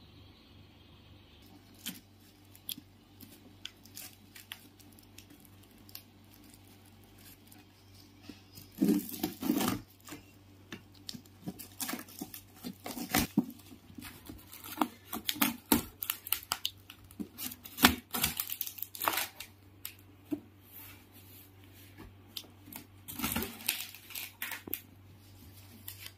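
Packaging being torn open and handled: the outer wrap of a cardboard mattress box tearing and rustling as it is peeled off, and the box's cardboard flaps being pulled open. A few faint clicks and rustles at first, then loud spells of tearing and crinkling from about nine seconds in until near the end.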